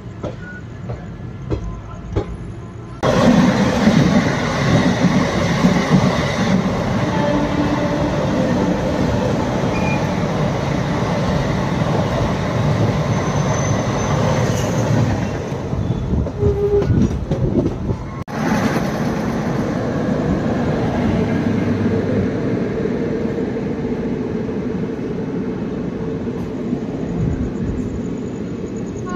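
Rumble and clatter of trains on rails, heard from the door of a moving train. About three seconds in, the noise jumps suddenly as a passenger train rushes past on the adjacent track, wheels clattering. After an abrupt change about two-thirds of the way through, a steadier rail rumble continues as another train's coaches run alongside.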